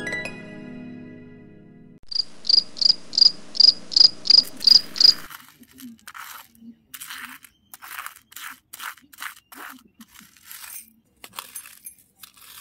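Plucked harp-like music fades away at the start, then a high cricket-like chirp repeats about three times a second for some three seconds. After that, a metal knife blade scrapes and pushes rice grains across the bed of a small model trailer in short rasping strokes, about one or two a second.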